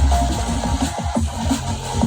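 Drum and bass track mixed by a DJ: fast breakbeat drums over deep sub-bass, which drops away about half a second in.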